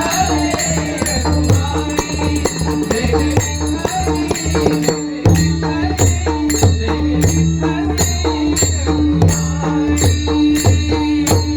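Bhajan music: regular drum strokes and jingling percussion over a steady held drone, stopping at the end.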